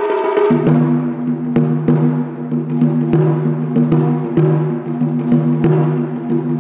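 Taiko drumming: a large nagado chu-daiko struck hard with wooden bachi, each stroke booming and ringing on, mixed with sharp stick clicks. Faster, higher-pitched drumming gives way to the deep strokes about half a second in.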